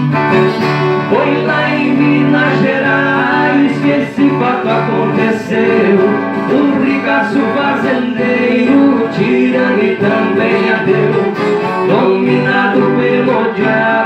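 Acoustic guitar (violão) and Brazilian viola caipira playing a plucked-string tune together.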